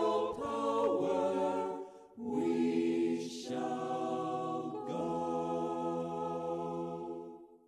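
A cappella choir singing held chords in three phrases, the last chord ending shortly before the end.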